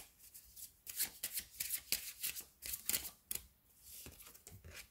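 A deck of oracle cards being shuffled by hand: a rapid run of crisp card flicks and slaps, easing into a softer rustle near the end.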